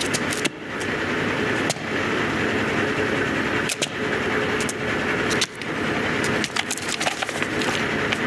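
A motor vehicle's engine running steadily with a low hum, with scattered sharp clicks and ticks over it and a few brief dips.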